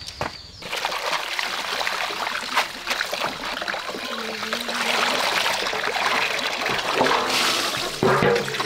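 Tap water running from a barrel's faucet into a stainless steel basin, splashing as leafy greens are swished and rinsed in it; the running starts under a second in. A brief pitched sound rises over the water near the end.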